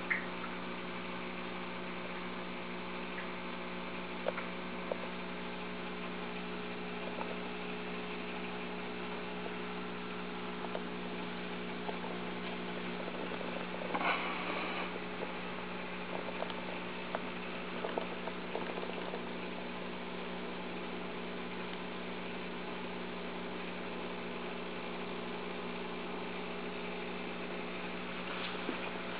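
Aquarium pump or filter motor humming steadily, with a few faint clicks and a brief noise about halfway through.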